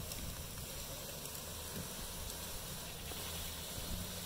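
Pickup truck engine running with a low steady hum as the truck tows a pile of cut brush across the field, under a steady hiss.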